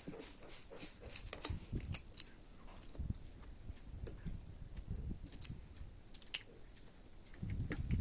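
Small plastic lamp and plug parts being handled and fitted together on a cloth-covered table: scattered light clicks and taps.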